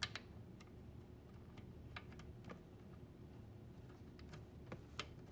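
Faint, scattered clicks and ticks of a plastic wire-harness connector and wires being handled and plugged into a dishwasher's pressure sensor, with the sharpest clicks at the very start and about five seconds in.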